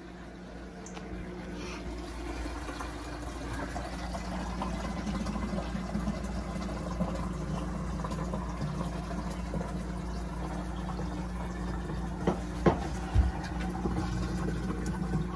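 Water pouring from the aquarium's overflow drain pipe and splashing into the reef sump, getting louder over the first few seconds as the flow builds. A couple of sharp clicks and a dull thud come near the end.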